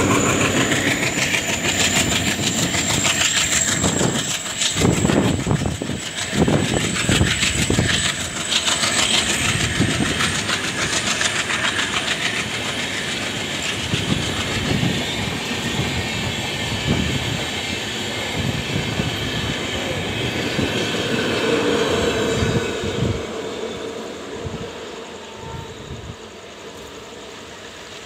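Diesel-hauled Indian Railways passenger train passing close by at speed: the locomotive, then a long rake of coaches, with wheels clattering over the rail joints and a thin high whine over the first ten seconds or so. The sound fades as the last coaches move away near the end.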